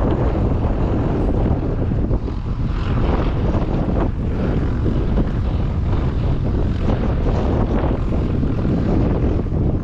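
1965 Massey Ferguson 400 combine harvester running steadily, its 5.0-litre four-cylinder diesel engine and machinery making a continuous low drone, with wind buffeting the microphone.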